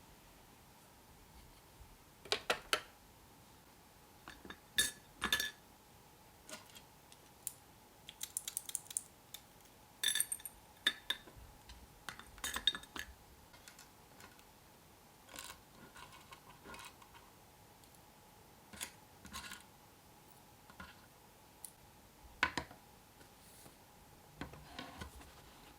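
Scattered light clicks and clinks of small hard objects being handled and set down, some in quick clusters, over a faint steady hum.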